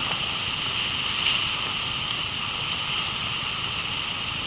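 Steady rush of whitewater from a river running near peak flow, heard from a raft on the water.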